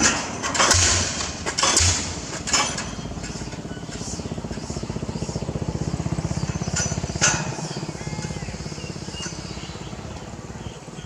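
Arcon DD-55 diesel pile hammer striking about once a second, four heavy blows, then stopping. An engine keeps running steadily after that, with one more sharp clang about seven seconds in.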